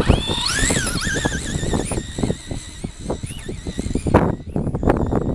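Traxxas Rustler VXL's brushless electric motor whining, rising steeply in pitch as the truck accelerates away across sand, then wavering with the throttle and fading out after about three seconds as it gets farther off. Low rumbling buffets of wind on the microphone run underneath.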